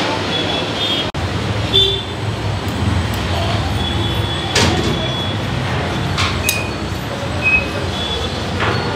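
Steady road-traffic noise with a low rumble, and short high-pitched sounds here and there.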